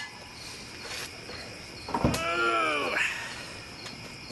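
A short thud about two seconds in, then a drawn-out human exclamation that rises and falls in pitch for about a second, over steady cricket chirping.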